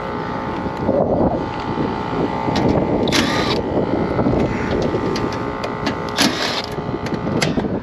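Packaged AC unit running with a steady hum and a rough, rattling drone from its three-phase compressor, which is running backwards out of phase and not pumping. Two short hissing bursts come about three and six seconds in.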